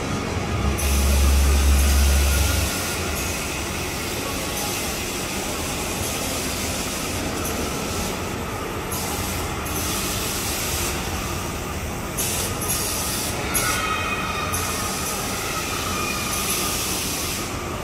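Steady mechanical running noise of a spinning amusement swing ride, heard from a seat as it circles. About a second in, a louder low rush lasts under two seconds.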